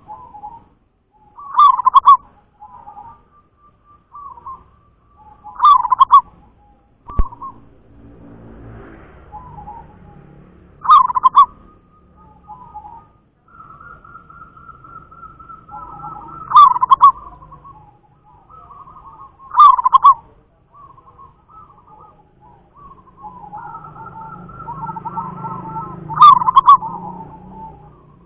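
Zebra dove (perkutut) singing: six loud, short cooing phrases a few seconds apart, with softer notes between them.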